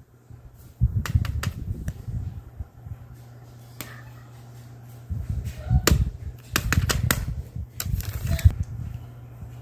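Fidget toys being picked up and moved about on a carpet, giving scattered sharp clicks and soft low thumps in two busy spells, over a steady low hum.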